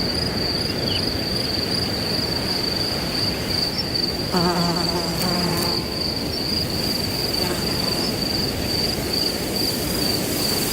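Crickets in one unbroken high trill over the rushing noise of wind in grass. About four seconds in, a low pitched tone with overtones sounds for about a second and a half.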